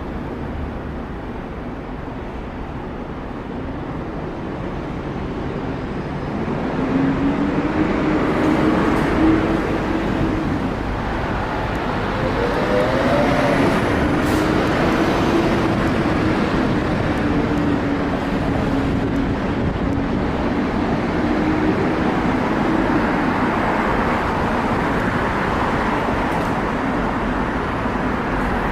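Street traffic: steady road noise of passing vehicles, growing louder about seven seconds in, with a low engine hum that drifts slightly in pitch through the middle.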